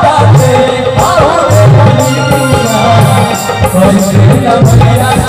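Live stage band playing a devotional song: a melody line over a repeating bass line and a steady beat of hand drums.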